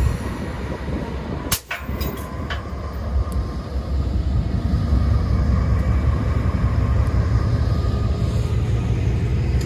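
Diesel locomotive of a passenger train running close by, a steady low rumble that cuts out briefly about a second and a half in, with a steady hum joining near the end.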